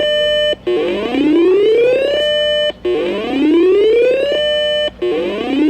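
Electronic whoop siren on an Emergency Alert System broadcast, leading into a flash flood warning. Each whoop climbs steadily in pitch for about a second and a half, holds briefly at the top and cuts off, repeating about every two seconds.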